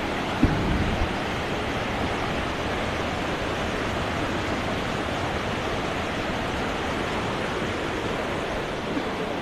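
Steady rushing of fast-flowing water, with a brief thump about half a second in.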